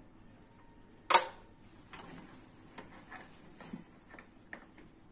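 Hard plastic parts clicking as a bassinet's hinged side lock bracket is pulled out and turned: one sharp click about a second in, then several faint ticks and knocks.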